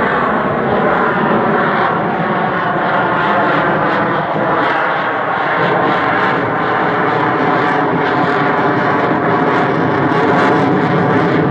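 Loud, steady roar of an F-22 Raptor's twin jet engines as the fighter flies a display overhead.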